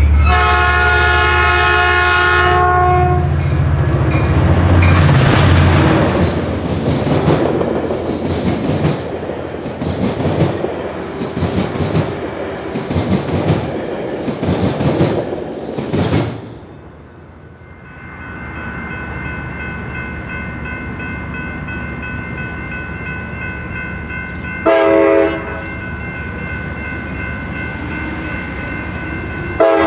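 Diesel locomotive horn blowing one long blast over a deep engine rumble as a train passes, followed by about ten seconds of wheels clacking over rail joints. Then, over steady high tones, the horn gives two short toots about five seconds apart.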